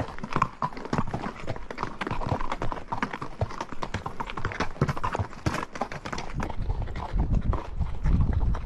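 Horse's hooves clopping on a trail in a quick, irregular run of sharp strikes. A low rumble builds up underneath near the end.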